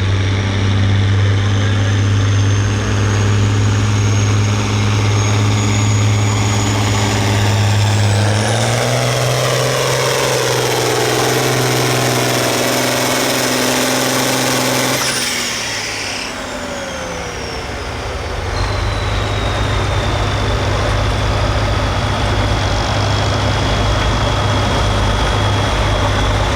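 Turbocharged diesel farm tractor engine running hard under load, its turbo whistle climbing to a high steady whine about eight seconds in. About fifteen seconds in the engine drops off suddenly and the turbo whistle winds down over a few seconds, the engine then running on steadily at a lower pitch.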